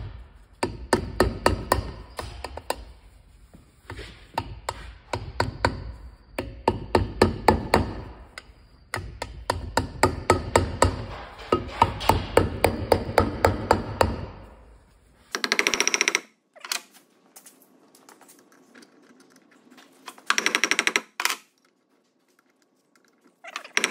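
Ball-peen hammer tapping a seal into the centre bore of a John Deere 8000-series MFWD clutch housing: runs of quick light metal-on-metal taps, several a second, with short pauses, stopping about fourteen seconds in. After that come a few short harsh buzzing bursts.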